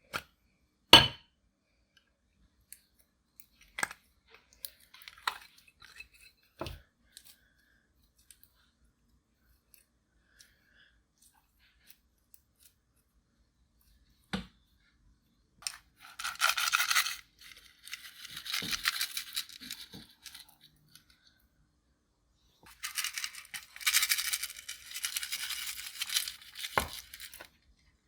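Pressed eyeshadow and makeup being scraped, crushed and worked into clear slime, giving three stretches of crackly scraping in the second half. Before them come a sharp click about a second in and a few fainter clicks.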